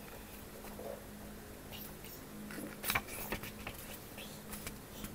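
Fingers handling the paper pages of a small hardback book: light rustles and soft taps, with one sharper tap about three seconds in, over a faint steady hum.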